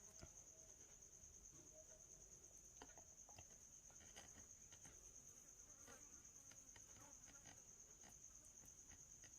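Near silence: room tone with a faint steady high-pitched whine and a few faint, scattered clicks.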